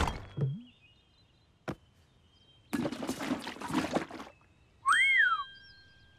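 Cartoon sound effects: a single sharp click, then a noisy rush lasting about a second and a half, then a short whistle that rises and falls, with a ringing tone lingering after it.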